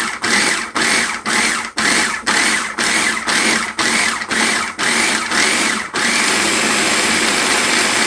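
Electric food processor pulsing on chopped raw vegetables, the motor whirring in short bursts about twice a second, then running continuously from about six seconds in as the vegetables are chopped down into a chunky sauce.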